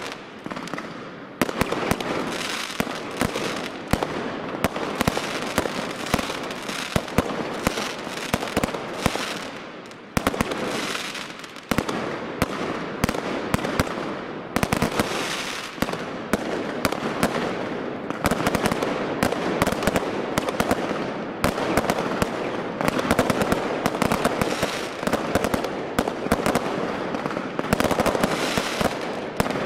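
Consumer firework batteries firing in a finale, with shot after shot launching and aerial bursts crackling densely over one another. The barrage briefly thins about ten and fourteen seconds in, then picks up again.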